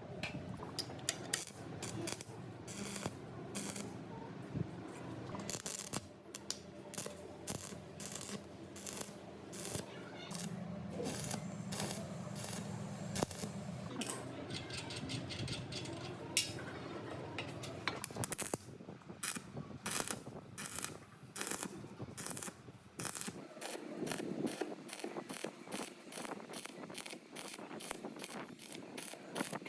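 Rapid metallic clicking in irregular runs of several clicks a second, from hand tools working on the metal parts of an old mortising machine during restoration.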